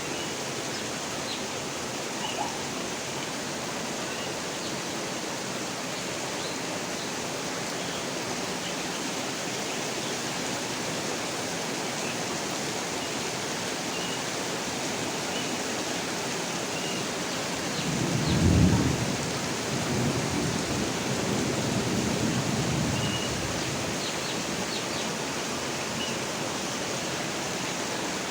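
Steady rainfall, with a low roll of thunder that swells about two-thirds of the way through and fades over several seconds.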